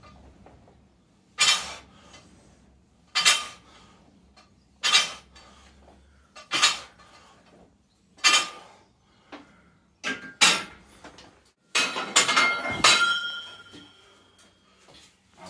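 Steel barbell clinking sharply five times, evenly about every 1.7 s, once per bench press rep. Then a burst of louder metal clanks with a short ringing tone as the bar is racked on the bench's uprights and the plates are handled.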